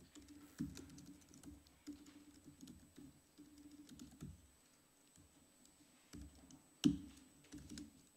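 Typing on a laptop keyboard: irregular key clicks, with one much louder keystroke about seven seconds in.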